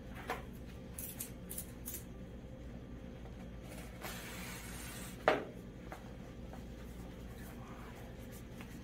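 Sheet of gloss vinyl car-wrap film being lifted and peeled back by hand: crinkling and rustling, a hissing peel about four seconds in, and one sharp snap about five seconds in, over a steady low hum.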